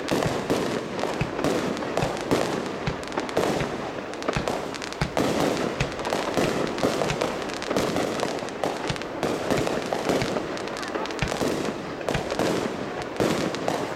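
Fireworks going off in quick, irregular succession: a dense run of bangs and crackling pops, several a second.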